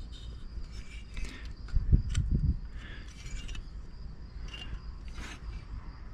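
Hands turning over a bare chainsaw crankcase half from a Farmertec G372XP kit, making light clicks, scrapes and small rattles, with a few dull knocks about two seconds in.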